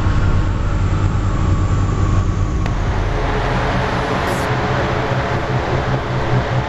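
Mazda RX-7 FD's rotary engine running steadily on a chassis dyno during a mapping session, its note shifting slightly about three seconds in.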